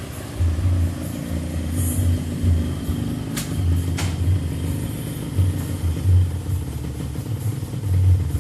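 Yamaha RX-King's single-cylinder two-stroke engine running with a deep, uneven, pulsing 'ngorok' (snoring) note from its modified air filter, a sound said to come out stronger with the fuel mixture set a little rich. Two short clicks come about halfway through.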